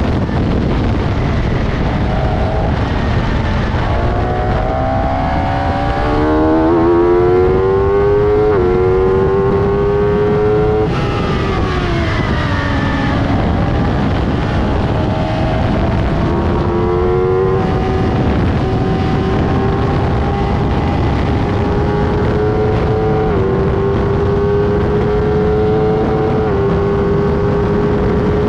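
Pacemaker K7 bike-engined race car with a 1000 cc motorcycle engine, heard from the cockpit under hard driving. The revs climb and drop sharply with an upshift about eight and a half seconds in, then climb again. The revs fall away for a corner between about eleven and thirteen seconds, then build, upshift again a little past halfway, and stay high toward the end. Heavy wind rush over the open cockpit runs underneath.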